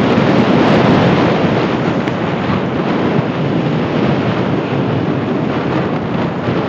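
Steady rush of wind over a handheld phone microphone while snowboarding, mixed with the hiss of the board sliding through powder snow. It is loudest in the first second or two and eases slightly toward the end.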